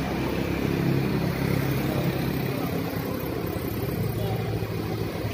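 Street traffic: a motor vehicle's engine running with a steady low hum as it passes on the street, louder about a second in and again near the end.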